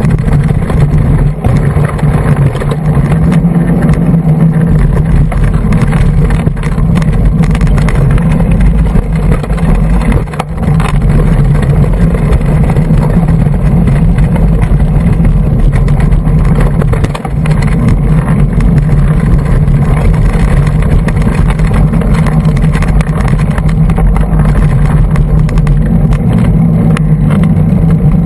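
Continuous riding noise from a hardtail mountain bike on singletrack, picked up by a bike-mounted GoPro Hero2 in its housing: steady loud rumble from tyres and wind, with frequent small rattles and knocks over the trail surface.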